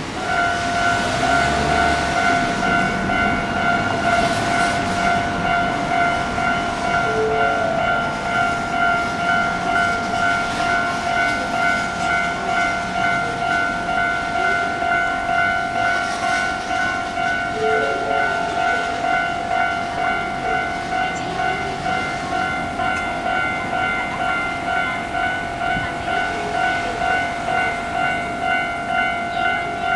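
Japanese railway level-crossing alarm (electronic crossing bell) starting up and then ringing steadily in an even, repeating ding pattern, warning that a train is approaching.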